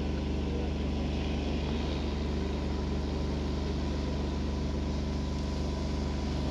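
Large multirotor crop-spraying drone flying overhead: the steady, loud hum of its propellers, a low drone with a pitched whine over it.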